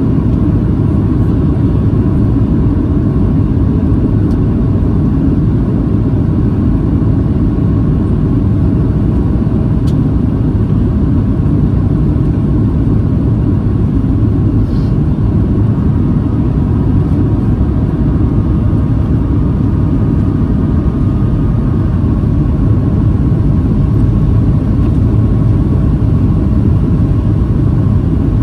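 Steady cabin rumble inside a Boeing 737-800 descending on approach: engine and airflow noise from the CFM56-7B engines at low power, with flaps extended, carrying a faint steady whine over the deep roar.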